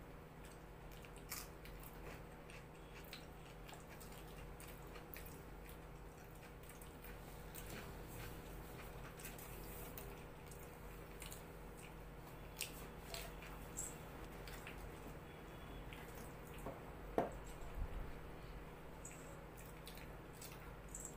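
Quiet eating by hand: fingers tearing soft flatbread and scooping curry on clay plates, soft wet chewing and scattered light clicks, over a faint steady hum. One sharper click comes late on.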